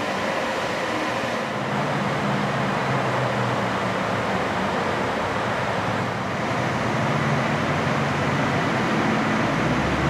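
A steady low mechanical hum and rumble over a constant hiss. The hum grows a little stronger about a second and a half in.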